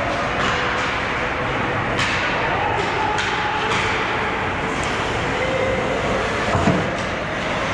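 Ice hockey rink game noise: a steady rushing noise of skates on ice and arena crowd, broken by a few sharp clacks of sticks and puck.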